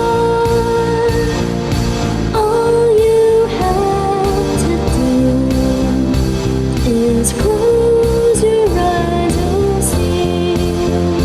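Music: a slow melody of long held notes that step from pitch to pitch over a steady, full backing.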